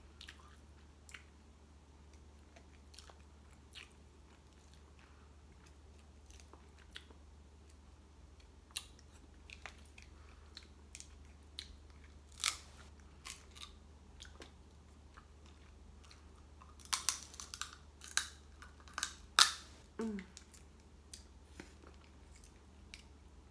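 Close-up eating of snow crab legs: sparse chewing and biting with scattered clicks of shell. Late on comes a quick run of louder cracks as a crab shell is bitten open, a shell so hard it almost breaks her teeth and holds no meat.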